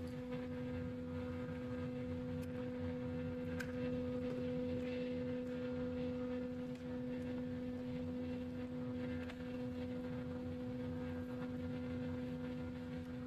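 Steady electrical-sounding background hum of two pure tones, one an octave above the other, with a couple of faint clicks in the first few seconds.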